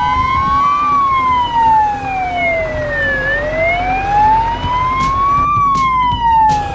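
Fire truck siren wailing, its pitch rising and falling slowly, one full sweep about every four to five seconds, over the low rumble of the truck's engine.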